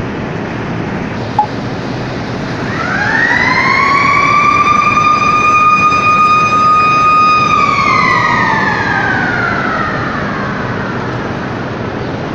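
Motor-driven warning siren winding up to a steady high wail, holding for about four seconds, then winding slowly down, over steady industrial background noise.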